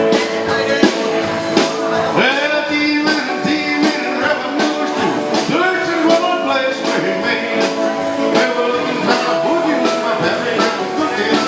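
Country band playing live, a stretch without vocals over a steady drum beat, with a lead instrument bending and sliding its notes.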